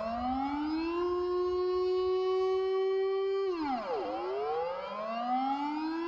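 Dutch civil-defence warning siren: one tone that climbs, holds steady, drops sharply about three and a half seconds in, then climbs again.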